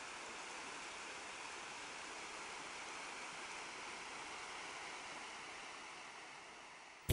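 Water rushing over a stepped stone cascade in a mill stream, a steady even rush that fades down over the last couple of seconds.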